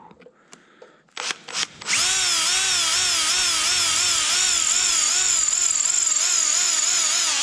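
Power drill given two short blips of the trigger, then run continuously for about five seconds, its motor pitch wavering up and down about twice a second, while drilling a hole for a radiator brace bolt.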